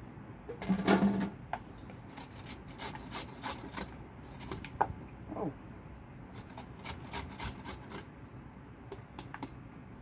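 Raw sweet potato being grated on a stainless steel box grater: quick rasping strokes, about three or four a second, coming in runs with short pauses between.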